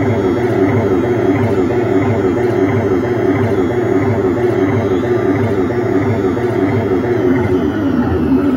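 Loud amplified concert sound in an arena, distorted by an overloaded phone microphone into a dense, steady wash with a regular repeating pulse.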